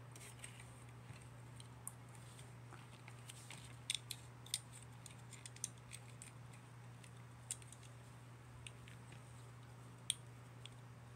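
Scattered sharp clicks and snips of plastic model-kit parts being cut off the runner and handled, a cluster about four seconds in and a single loud one near the end, over a low steady hum.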